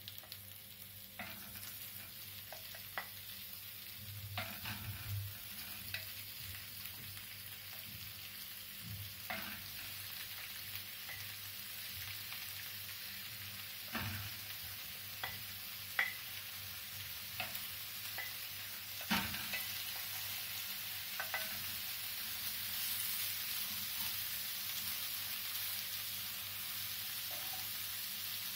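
Chicken pieces sizzling as they are shallow-fried in hot olive oil, the sizzle growing steadily louder as more pieces go into the pan. A wooden spoon knocks now and then against the bowl and pan as the pieces are pushed in.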